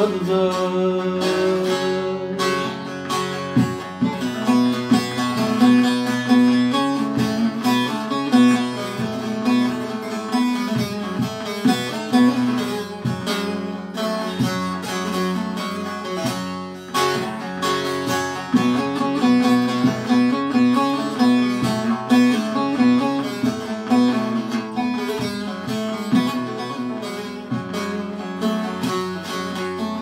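Two bağlamas (long-necked Turkish saz lutes) playing an instrumental interlude of a Turkish folk song: a busy plucked melody over steady ringing drone notes.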